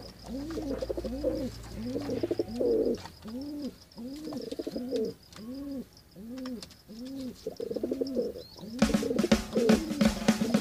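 Pigeons cooing: a steady run of rising-and-falling coos, about one and a half a second. Music with guitar and drums comes in near the end.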